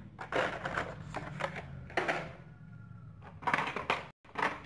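Hot Wheels blister-pack cards, plastic bubbles on cardboard backs, clattering and rustling as they are handled and shuffled. The sound comes as several quick clusters of sharp clicks.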